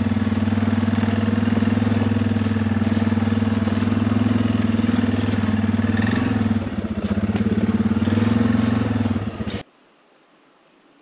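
Quad (ATV) engine running steadily while riding, its note dipping briefly about two-thirds of the way through, then cutting off abruptly near the end.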